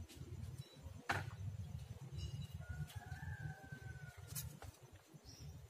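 A rooster crowing in the distance: one long call about three seconds in, over a low rumble, with two sharp clicks, one about a second in and one near the end of the call.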